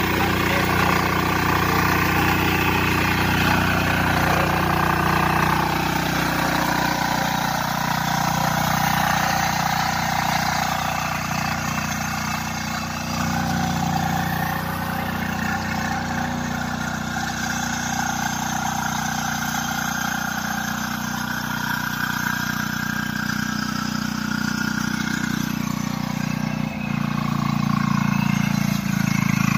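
Husqvarna TF 544 power weeder's single-cylinder air-cooled diesel engine running steadily as the weeder tills soil, its note shifting a little about six seconds in and again near the end.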